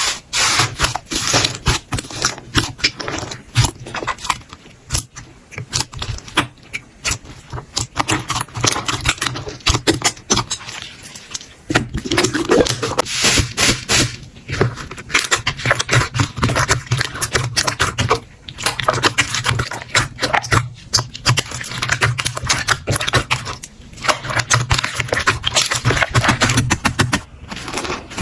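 Slime being squeezed, pressed and stretched by hand, a dense run of wet crackling and popping clicks. The sound changes character every few seconds as one clip of slime gives way to the next.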